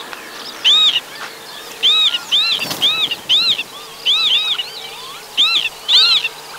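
Northern lapwings giving alarm calls as they mob an eagle threatening their nest: short calls that rise and fall in pitch, repeated in quick clusters of one to three.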